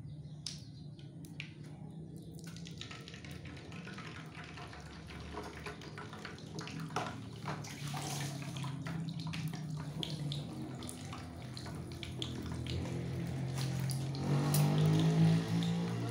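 An egg frying in hot oil in a frying pan, a steady sizzle with dense crackling that starts about two seconds in. A low hum runs underneath and is loudest near the end.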